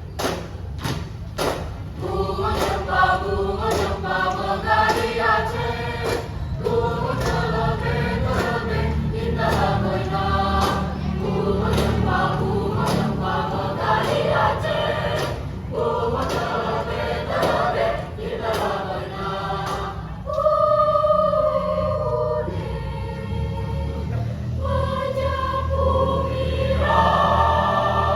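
Student choir singing in parts over a steady beat of sharp percussive strikes. About twenty seconds in, the singing turns to longer held chords.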